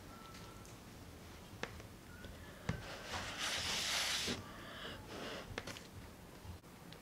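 Mukbang eating sounds: light clicks of a plastic fork against a styrofoam food container, then a loud sucking slurp lasting about a second, roughly three seconds in, as a forkful of cheesy chili fries goes into the mouth, followed by soft chewing.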